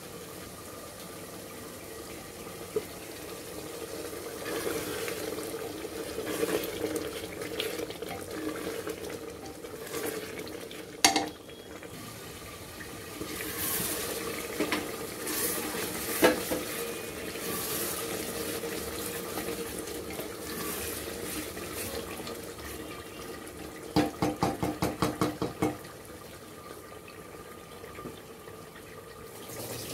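Beef liver in spice paste sizzling as it is fried in an open aluminium pressure cooker, stirred with a wooden spatula: a steady sizzle with scattered knocks of the spatula on the pot, and a quick run of about eight taps near the end.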